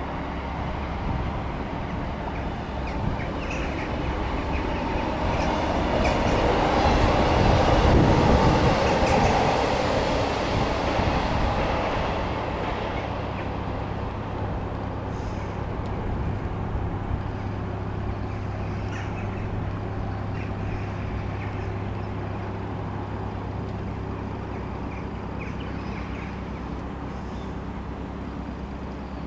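A train passing over a stone railway viaduct, its rumble swelling to its loudest about eight seconds in and then fading away. Under it runs the steady low hum of the narrowboat's diesel engine.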